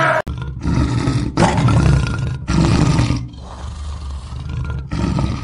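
Lion roaring: three loud, rough roars of about a second each in a row, then a quieter stretch and another roar starting near the end.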